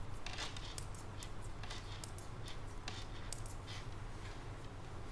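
Metal knitting needles clicking and tapping irregularly as stitches are purled, with light rustling of yarn, over a low steady hum.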